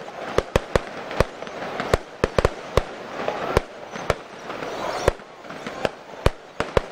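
Fireworks display: more than a dozen sharp bangs from aerial shells bursting at irregular intervals, some in quick clusters of two or three, over a continuous background rumble.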